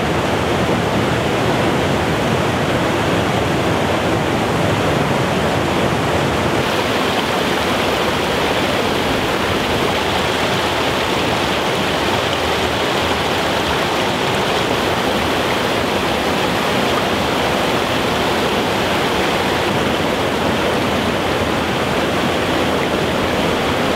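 Water pouring steadily over the weir at the head of the old Honing Lock into the brick lock chamber: a continuous, unbroken rush of falling water. About seven seconds in, the higher hiss drops a little.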